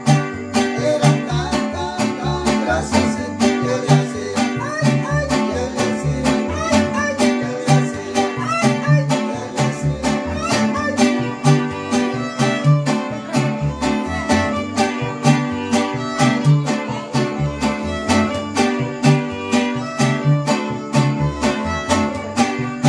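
Instrumental music: plucked string instruments playing over a steady, evenly spaced beat.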